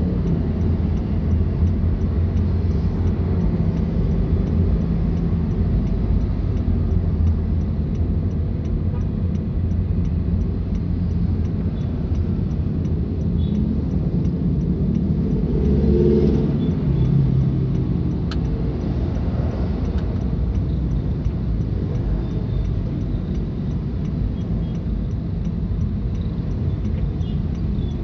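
Car on the move: a steady low engine and road rumble, swelling briefly a little past halfway as the engine pulls harder.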